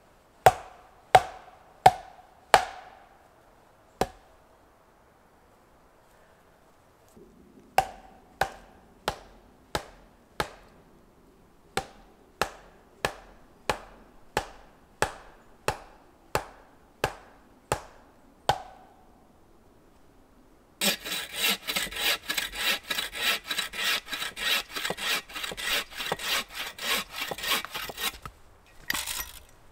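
Axe blows on wood: five sharp strikes with a short ring, a pause, then a steady run of about sixteen blows at roughly one and a half a second. Then a bow saw cuts through a log in quick back-and-forth strokes, about three a second, for some seven seconds, with one last short stroke near the end.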